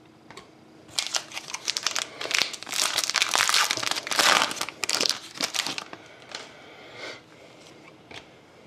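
Foil wrapper of a Panini Prizm trading-card pack being torn open and crinkled by hand: a dense crackling that lasts about five seconds, loudest in the middle, then softer rustles.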